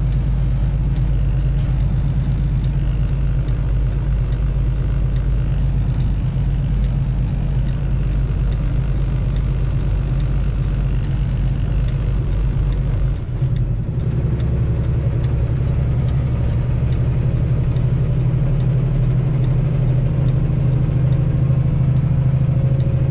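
Semi truck's diesel engine running steadily under way, a low, even hum. About halfway through the sound dips briefly and the engine's note changes, then runs on steadily.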